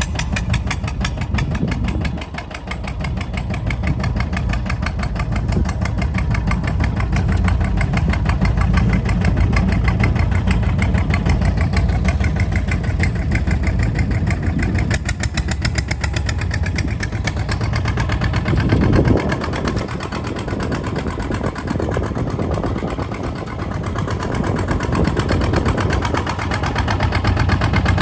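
Kubota ZT 155 DI single-cylinder diesel engine of a two-wheel walking tractor running steadily as it drives along, with a rapid, even beat of firing pulses.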